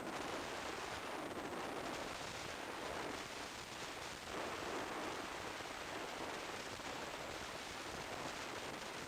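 Steady rush of wind and road noise from a Kawasaki Z1000SX motorcycle under way, heard through an action camera's microphone.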